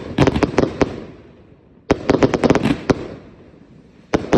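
King Bunny 225-shot firework cake firing in volleys: three clusters of sharp bangs about two seconds apart, each a rapid run of cracks from shots launching and bursting overhead.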